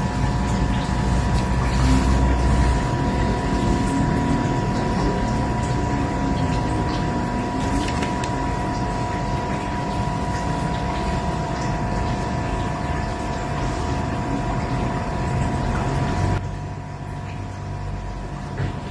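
A steady mechanical hum: a low rumble with a few constant whining tones above it. It quietens abruptly near the end.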